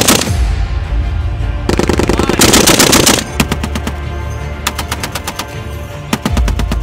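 Browning M2 .50 caliber heavy machine gun firing in bursts of automatic fire: one at the start, a longer burst of about a second and a half from about two seconds in, then several short bursts.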